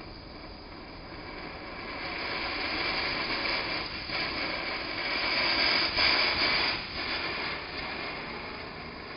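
Homemade anar (Diwali fountain firework) burning, its spray of sparks giving a steady rushing hiss. The hiss swells to its loudest a little past the middle and then eases off.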